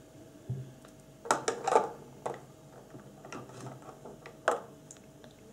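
Short clicks and scrapes of small kit pieces handled against a thin plastic packaging tray: a paintbrush set down into its slot and a glue tube picked up. Several separate clicks, the loudest cluster about a second and a half in.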